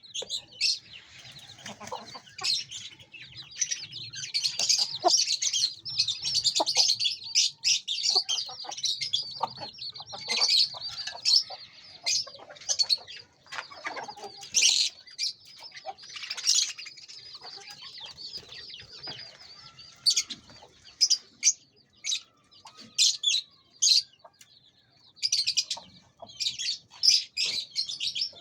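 Colony of caged love birds chattering: many short, high chirps overlapping continuously, with louder flurries coming and going and occasional wing flutters.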